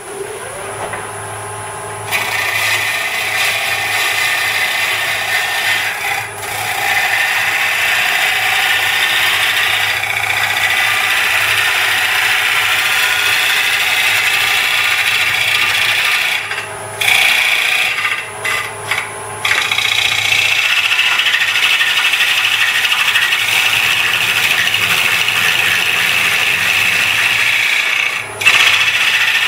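A turning tool cutting the outside of a spinning ash bowl blank on a wood lathe: a steady, loud shearing noise of wood being cut away, broken by a few brief lifts of the tool, over the lathe's steady low hum. It is the roughing stage that shapes the bowl's outside and foot.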